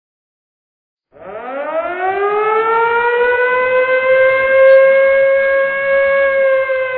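A siren starts about a second in, winding up in pitch and then holding a steady, loud wail.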